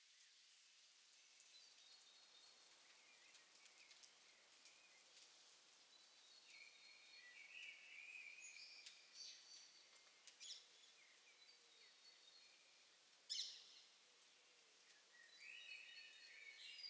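Faint birdsong over a low background hiss: scattered high chirps and short warbling phrases, with one sharper, louder call about two-thirds of the way through.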